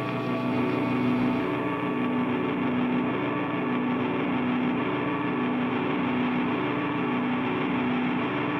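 Steady drone of several held tones, with one low tone pulsing slowly; it drops away sharply near the end and fades out.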